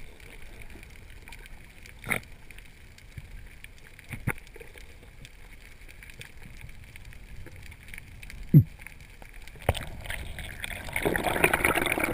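Underwater ambience while freediving over a reef: a low steady hiss with a few scattered sharp clicks and knocks and a short low thud, then a louder rush of water noise building near the end.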